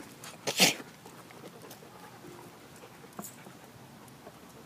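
A dog gives one quick double bark about half a second in, then only faint small clicks follow.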